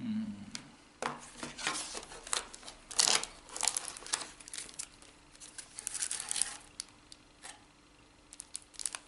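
Tablet packaging being handled during unboxing: irregular crinkling and rustling with light clicks and knocks. The loudest burst comes about three seconds in, with a few sharper clicks near the end.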